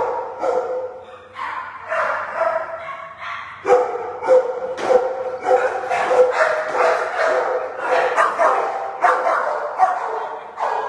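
Several dogs barking and yipping in shelter kennels, their barks overlapping without a break.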